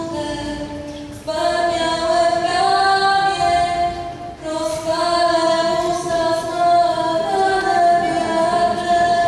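A young woman singing a slow song through a microphone, in phrases of long held notes that break briefly about a second in and again near the middle, with acoustic guitar accompaniment.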